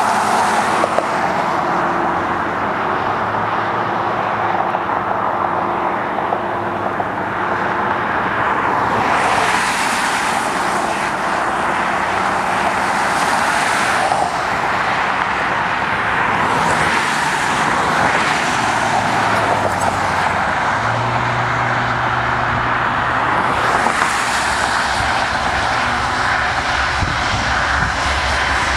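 Cars passing on a wet highway, tyre hiss swelling and fading several times, over steady noise. From about two-thirds of the way in, the diesel engines of two approaching Amtrak GE Genesis locomotives rise into a low, steady drone that grows toward the end.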